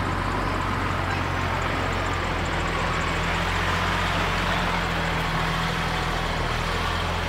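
A large vehicle's engine running steadily at low revs, a constant low hum.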